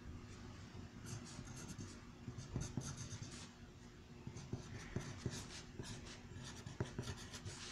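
Pen writing on paper: a run of short, faint scratchy strokes and light taps of the tip as letters and symbols are written out.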